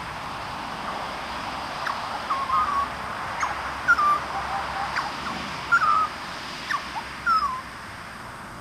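Juvenile grey butcherbirds giving a series of short, slightly falling calls, about half a dozen over five seconds, with a few sharp clicks among them, over a steady background hiss.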